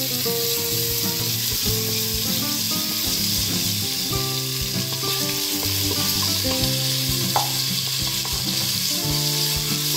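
Sliced onions frying in hot oil and ghee in a pressure cooker, a steady sizzle, with a wooden spatula stirring them as they sauté until soft.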